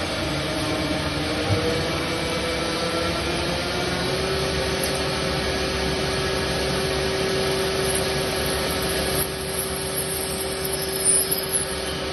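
CNC machine running: a steady motor whine over a noisy hiss. The whine wavers in pitch for the first few seconds, then holds steady.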